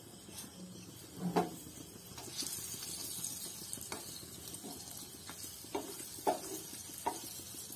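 An egg paratha frying in oil in a non-stick pan, with a faint sizzle and a few light knocks of a wooden spatula against the pan as the just-flipped paratha is pressed and turned.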